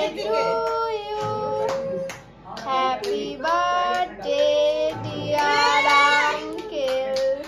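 A child singing a tune in a high voice, in phrases with long held notes.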